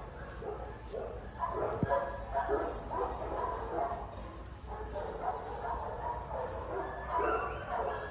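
Short animal calls repeating several times a second, over a low steady hum.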